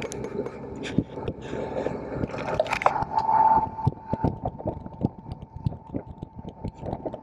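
Sailboat's engine running steadily while motoring under way, with water splashing along the hull and irregular knocks.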